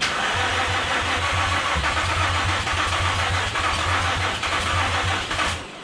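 Infiniti G35's 3.5-litre V6 cranking over on the starter motor for about five and a half seconds without catching, then cutting off. The owner guesses the no-start is a battery left too weak by many rounds of cranking.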